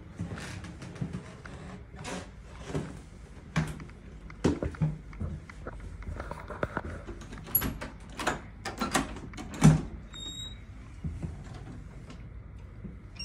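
Footsteps on wooden stairs: irregular thuds and knocks, the loudest a little before ten seconds in.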